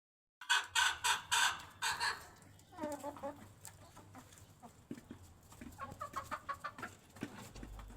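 Brahma chickens clucking: a loud, quick run of about six harsh clucks in the first couple of seconds, then softer, lower clucks and scattered quiet calls.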